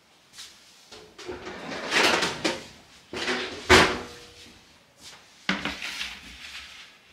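A metal baking sheet and an aluminium foil pan clattering and scraping on a wooden table as the full foil pan is set onto the sheet, with one sharp knock a little before four seconds in and a few more knocks near the end.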